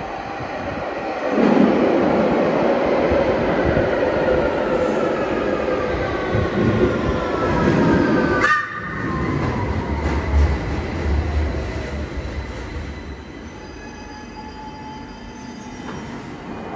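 London Underground Victoria line 2009 Stock train arriving at the platform: wheel and air noise builds quickly, then the traction motors whine in several tones falling in pitch as it brakes to a stop, with a sharp click about halfway through.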